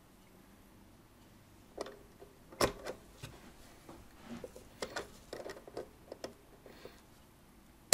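Irregular small clicks and taps of pliers working at the hands and centre post of a clock dial. They start about two seconds in, and one sharper knock comes shortly after.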